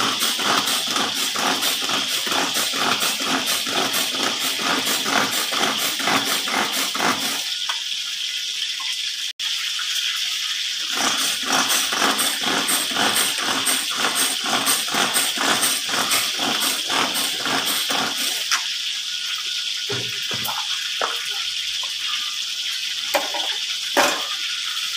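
Hand-pressed plunger chopper dicing spring onions and herbs: rapid, rhythmic chopping strokes that pause for a few seconds about seven seconds in, start again, then stop and give way to a few scattered knocks near the end.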